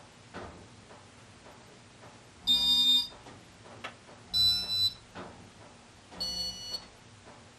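Three electronic beeps from the Casablanca Inteli-Touch fan control, each about half a second long and spaced roughly two seconds apart, as the fan is switched to forward. Faint scattered ticks sound between them.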